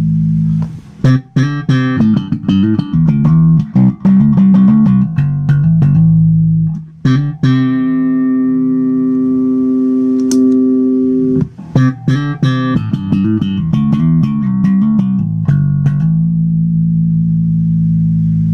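Electric bass guitar played slap style: bursts of fast slapped thumps and popped notes, with a long held ringing note in the middle and a sustained low note near the end.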